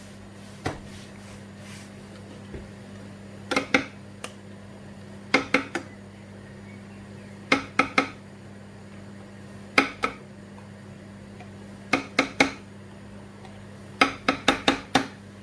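A metal teaspoon clinks against a bowl in short groups of two or three taps about every two seconds, as spoonfuls are knocked off into the bowl, over a low steady hum.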